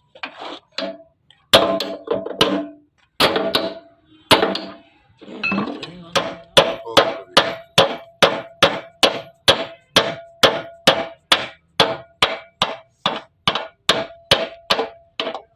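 Hammer blows on metal: a few irregular strikes, then from about six seconds in a steady run of about two to three blows a second, each with a short metallic ring. The hammering is driving a bearing onto the shaft of a sugarcane juicer.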